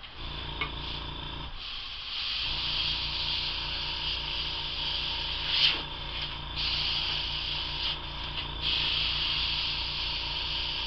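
Airbrush compressor starting up and running with a rapid pulsing hum that stops for about a second near the two-second mark. Over it the airbrush hisses as it sprays alcohol ink, the hiss cutting in and out as the trigger is worked.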